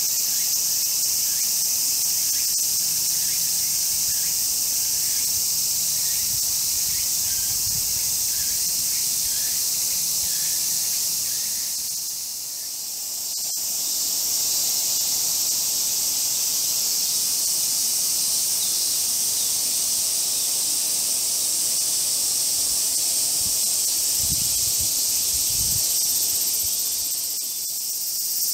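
Dense, steady high-pitched chorus of summer cicadas. It dips briefly about twelve seconds in and again near the end.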